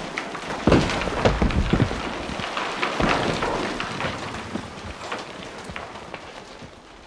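Landslide: rocks and stones tumbling and clattering, many scattered knocks over a gritty rush, with a few heavier knocks in the first few seconds and the whole sound fading steadily.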